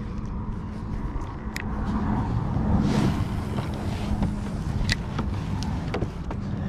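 Steady low hum of the kayak's Minn Kota electric motor, with a swell of rushing noise about three seconds in and a few sharp clicks.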